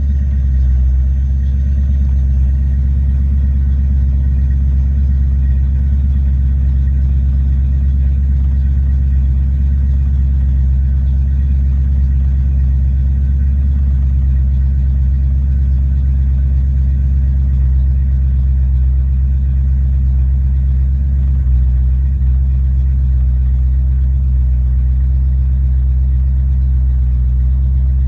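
1993 Ford Mustang Cobra 5.0L V8 idling steadily, a constant low rumble with no change in speed.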